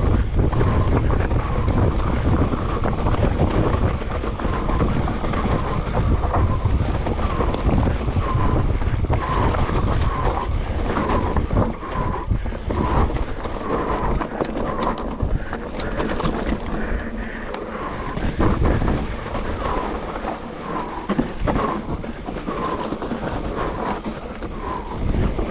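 Wind buffeting the microphone while an electric mountain bike rides over a rough trail, with short repeated rattles and a cluster of sharp clicks and knocks about two-thirds of the way through.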